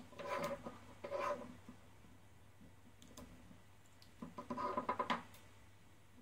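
Small plastic robot parts handled and fitted together, in three short bursts of clicking and rattling. The last burst, about four seconds in, is the longest and loudest.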